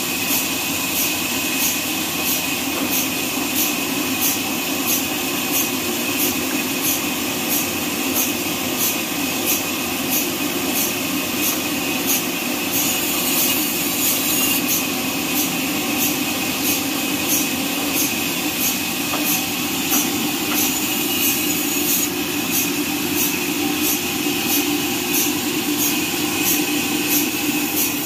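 Horizontal band sawmill running steadily as its band blade cuts through a neem log: a constant machine hum with a regular light ticking.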